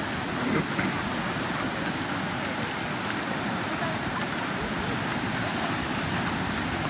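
Steady outdoor ambient noise, an even wash with no single clear source standing out.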